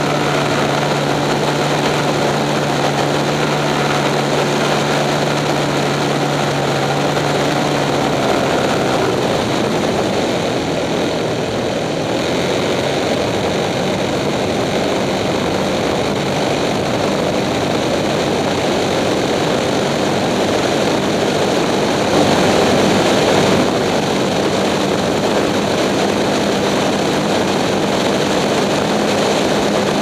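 Propeller airplane in flight heard from a camera on its wing: a steady drone of engine and propeller under heavy rushing airflow. About a third of the way in the engine hum fades back and the rush of air takes over, with the drone faintly beneath.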